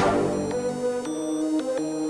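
Electronic hip-hop beat intro: sustained synthesizer chords over a held bass, the notes changing every half second or so, with no drums.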